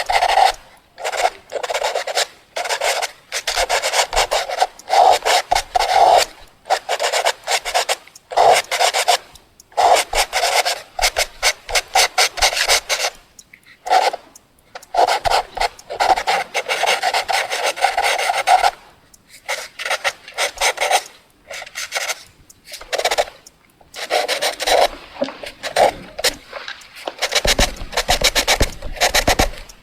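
Graphite pencil writing on paper: runs of quick, scratchy strokes, broken by short pauses where the pencil lifts.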